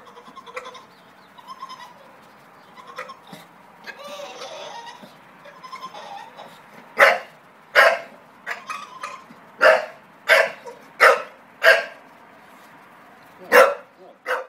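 English bulldog whining softly at first, then barking loudly about eight times in the second half, eager to get into the pool.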